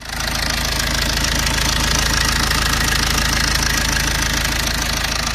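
Tata Zest's 1.3 Multijet diesel engine running at a steady speed with a fast, even rattle from the timing chain. The mechanic puts the noise down to a slack, worn timing chain and a cam gear that was not replaced when the chain was changed.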